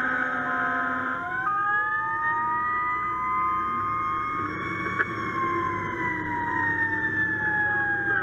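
Fire truck siren wailing, heard from inside the cab while the truck drives: the pitch rises slowly for a few seconds, then falls slowly. A steady horn blast cuts off about a second in.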